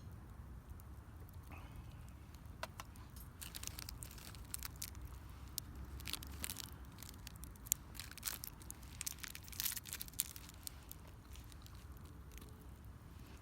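Burning firewood crackling, with a run of sharp irregular pops from about three seconds in until near the end.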